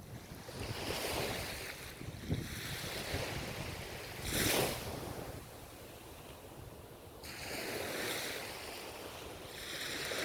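Ocean waves breaking and washing up the shore, the surf swelling and fading in surges, the loudest a short crash about halfway through.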